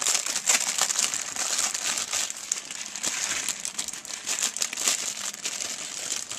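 Plastic instant ramen noodle packet crinkling continuously as hands squeeze and work it, a dense run of crisp crackles.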